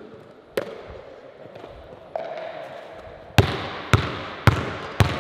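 A basketball bounced on a hardwood gym floor: one bounce about half a second in, then four dribbles about half a second apart near the end, each echoing in the gym.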